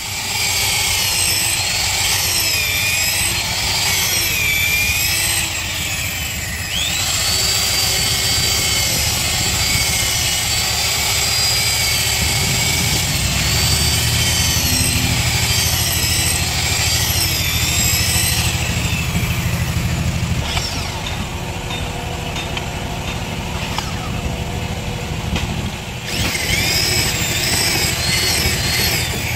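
Corded electric drill driving long screws into the hardwood frame of a wooden fishing boat. Its motor whine sags and recovers in pitch as each screw bites and draws the timber in tight. The whine eases off for several seconds after the middle and picks up again near the end.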